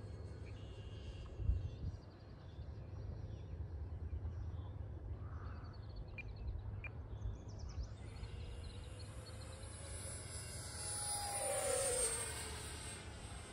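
Electric radio-controlled model airplane making a low pass: its motor's high whine comes in partway through, grows louder and drops in pitch as it goes by, loudest near the end. Wind rumbles on the microphone throughout.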